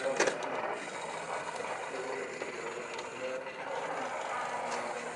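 Plastic robot modules being handled and pressed together by hand: a few sharp clicks right at the start, then irregular softer clicking and rattling of the plastic parts.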